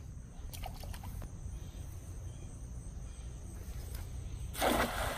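A thrown cast net landing on pond water with a short splash about four and a half seconds in, over a steady low rumble and a faint steady high hum.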